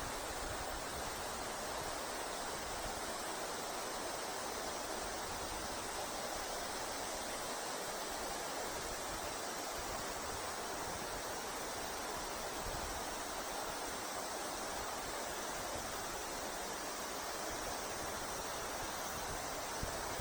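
River water rushing steadily: an even, unbroken flow noise of a fast-running river current.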